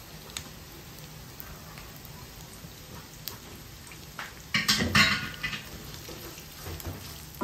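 Chopped onion and garlic sizzling gently in oil in a nonstick wok. A louder burst of sizzling and stirring with a silicone spatula comes about four and a half seconds in.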